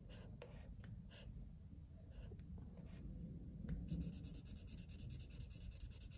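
Felt-tip marker colouring in a square on a paper savings-challenge card: faint scratchy marker strokes, turning into rapid back-and-forth scribbling about four seconds in.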